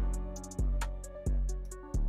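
Background music with a steady beat: a deep bass hit about every two-thirds of a second under held notes, with quick bright cymbal-like taps between.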